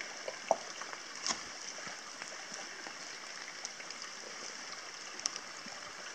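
Steady rain and shallow water trickling over stones, with scattered light clicks and taps.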